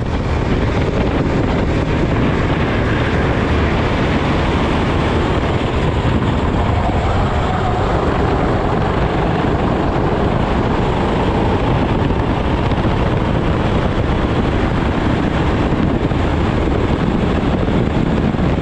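Onboard sound of a Sodikart SR4 four-stroke rental kart at racing speed: the engine running hard with wind rushing over the microphone. The revs drop through a corner and climb again on the exit.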